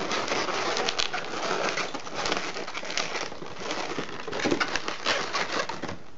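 Inflated latex twisting balloons (160s) squeaking and rubbing against each other as they are twisted and pushed around a joint of a balloon sculpture, a continuous run of rubbery squeaks and scrapes.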